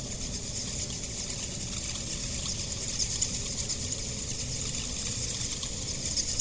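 Night forest ambience: a steady, dense high-pitched chorus of insects, with a low background rumble.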